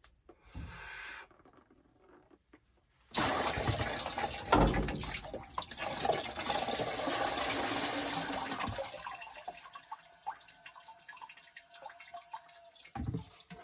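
Water pouring out of a tipped whole-house water filter housing into a plastic bucket. It starts suddenly about three seconds in and tapers off over the last few seconds.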